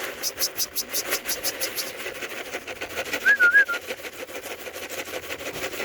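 A short warbling whistle about three seconds in, over a fast, even high ticking of about six or seven pulses a second and a steady low hum.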